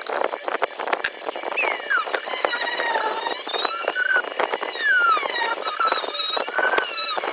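Screws being turned out of an old metal tool, squeaking in a run of short squeals that glide up and down in pitch, over a steady scratchy clicking of metal on metal.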